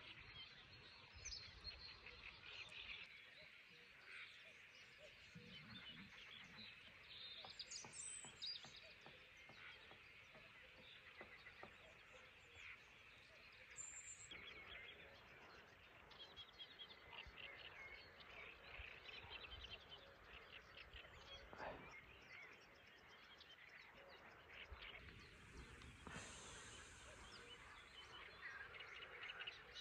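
Faint birdsong: many small chirps and calls scattered over near silence.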